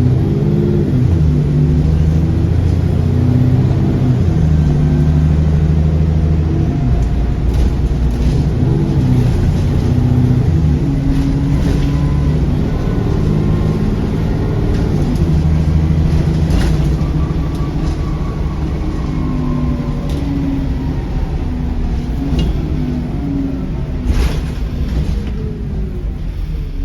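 Alexander Dennis Enviro400 double-decker bus's diesel engine running under way, its note shifting up and down through the gears. A faint turbo whine rises and falls above it, and there are a few short clicks and rattles.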